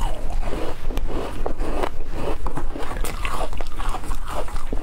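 Close-miked crunching and chewing of frozen passion-fruit ice, a rapid, uneven run of sharp cracks as the ice breaks between the teeth.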